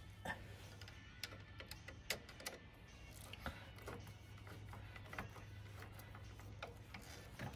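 Ratchet wrench clicking faintly in short, irregular runs as a bolt is turned, with a light metal tap here and there.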